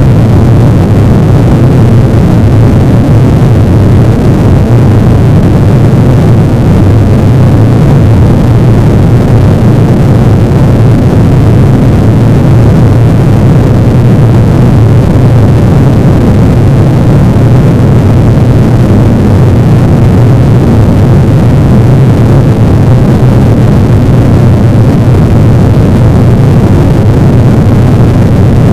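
A loud, steady low drone with a hiss over it, unchanging throughout.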